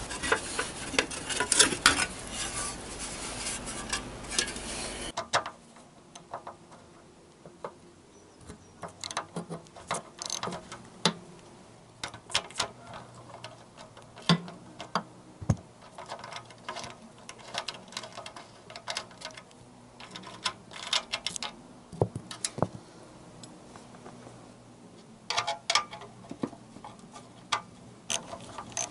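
Small ring spanner being worked on a rusty nut on a motorcycle: scattered light metallic clicks and ticks as the spanner is fitted, turned and repositioned. The first five seconds or so are covered by louder rustling from close handling.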